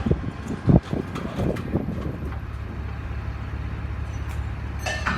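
A heavy vehicle's engine running with a steady low drone, after a few knocks in the first two seconds. A short burst of hiss-like noise comes near the end.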